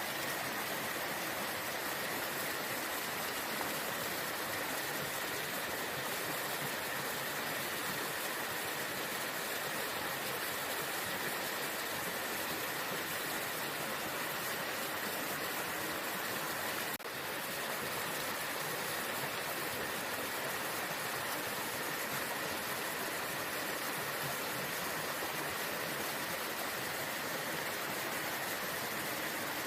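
Waterfall rushing steadily, an even wash of water noise with a momentary dip about seventeen seconds in.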